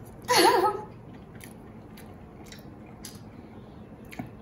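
Close-up eating sounds: crispy fried chicken being bitten and chewed, with faint scattered crunches. About half a second in there is a short, louder vocal sound with a wavering pitch.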